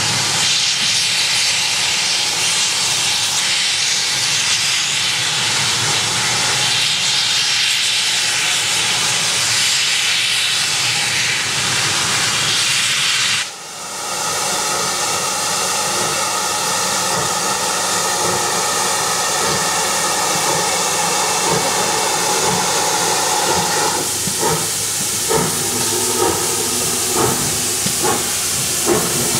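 GWR Collett 2251 class 0-6-0 steam locomotive No. 3205 releasing a loud, steady hiss of steam from around its cylinders, typical of open drain cocks as it gets under way. The hiss dips briefly about halfway through. In the last few seconds, exhaust beats start coming about once a second as the engine moves off.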